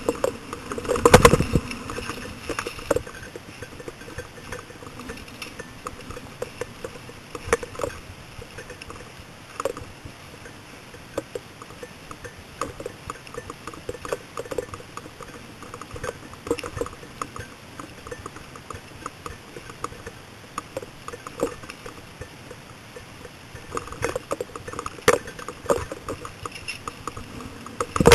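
Mountain bike rattling over rough dirt trail: irregular clicks, clinks and knocks of chain and frame, with a heavy knock about a second in and a busier patch of rattling near the end.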